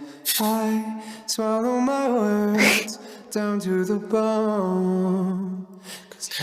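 Background music: a slow song with a sung vocal line, long held notes gliding from pitch to pitch.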